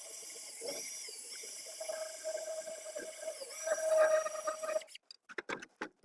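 Electric drill running a 2-inch auger bit boring into a wooden mug blank: a steady motor whine that swells, then cuts off suddenly about five seconds in, followed by a few light clicks and knocks.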